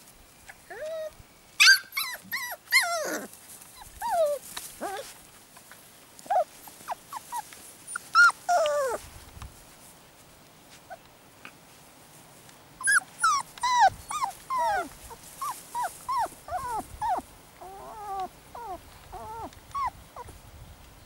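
Four-and-a-half-week-old puppies whining and yipping with high, wavering calls. The calls come in clusters: a few about two seconds in, more around eight seconds, then a long run of them from about thirteen seconds on.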